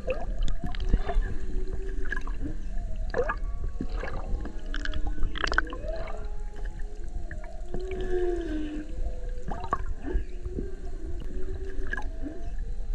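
Humpback whale vocalizing underwater: a string of moans and whoops that glide up and down in pitch, over a steady low water rumble with scattered sharp clicks.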